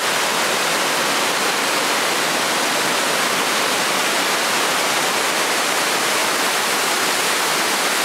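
Steady rushing hiss of falling water from a waterfall, even in level throughout.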